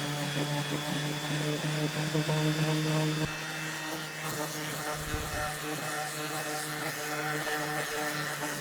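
Electric sander running steadily with a low hum and a thin high whine while it sands the edges of a sycamore guitar body, with a low bump about five seconds in.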